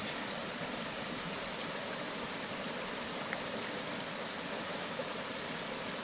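Small rocky forest stream running over stones: a steady rush of water, with one faint click about halfway through.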